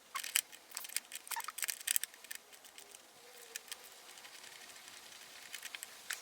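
Irregular small clicks and ticks of a hand tool working the bolts of a hood latch, thickest in the first couple of seconds and thinning out after that.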